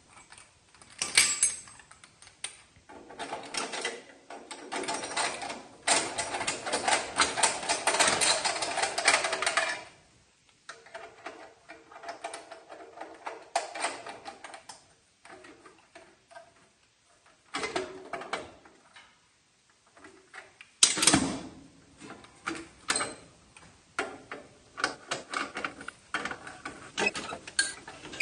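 Steel wheel-clamp parking boot being fitted to a trailer tire: scattered metal clicks and knocks, a long run of rapid clicking as its crank is turned to close the clamp, a loud clank about two-thirds of the way through, and quick ticking near the end.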